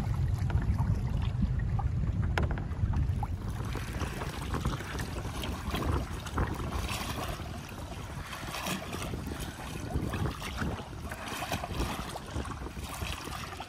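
Wind buffeting the microphone over choppy water, heaviest in the first few seconds, then choppy water splashing and lapping against a canoe's hull with irregular splashes as it is paddled.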